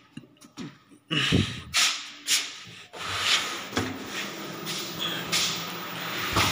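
Rubbing and scraping handling noise on the microphone of a hand-held camera as a hand pushes open a glass-panelled double door, with a few sharp knocks about a second in.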